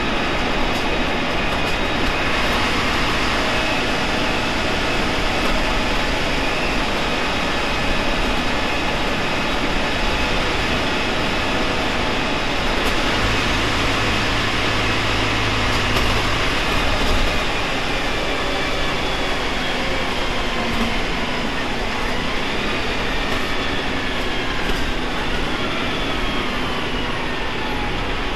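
Cummins ISMe diesel engine and Voith DIWA automatic gearbox of a Transbus Trident III double-decker bus running on the move, a steady loud drone with a whine that slides down in pitch near the end.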